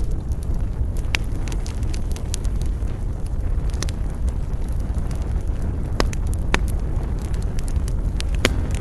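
Wood fire crackling in a fireplace: a steady low rumble of flames with scattered sharp pops and snaps. Music comes in near the end.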